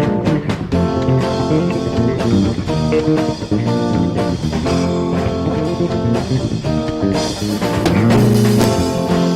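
Worship band playing an instrumental passage: guitar over bass guitar and a drum kit, with no singing. The band swells louder with more cymbal wash about seven seconds in.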